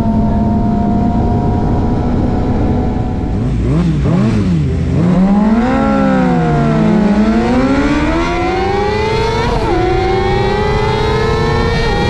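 Suzuki GSX-R 750's inline-four engine heard from the bike itself: the revs hold steady, then fall and rise twice as the throttle is rolled off and on, climb steadily, drop sharply at a gear change about nine and a half seconds in, and climb again.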